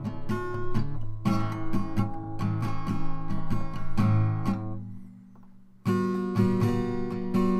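Acoustic guitar strumming chords in an instrumental stretch of a song. The strumming dies away about five seconds in and comes back strongly a second later.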